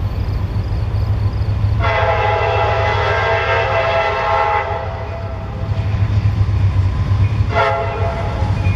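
Approaching CSX freight locomotive sounding its multi-tone air horn: one long blast about two seconds in, then a short one near the end, part of a grade-crossing signal. Under the horn the diesel engines rumble steadily.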